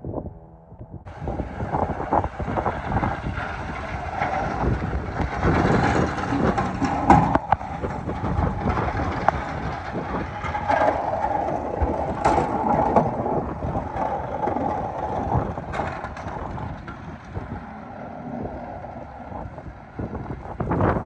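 A heavy vehicle driving past on the snowy street: a loud, steady running noise full of knocks and rattles, starting suddenly about a second in and easing off near the end.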